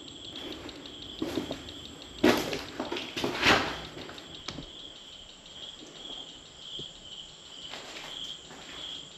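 Scuffing and crunching of movement over a debris-littered floor, loudest about two to four seconds in. Throughout, a high insect-like chirp pulses a little under twice a second.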